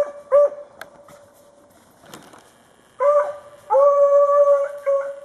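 A beagle baying on a hare's trail: two short yelping bays at the start, then from about three seconds a run of bays including one long drawn-out howl about a second long.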